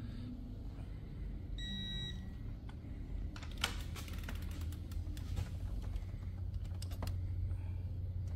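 A short electronic beep from a digital torque-angle wrench about two seconds in, the kind it gives when the target angle is reached. It is followed by a scatter of light metallic clicks from the wrench and tools on the engine, over a steady low hum.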